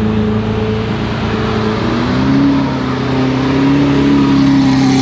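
Lamborghini Aventador LP700-4's 6.5-litre V12 running through a straight-piped Capristo exhaust as the car rolls slowly past, with a steady engine note whose pitch rises a little about two seconds in and then holds.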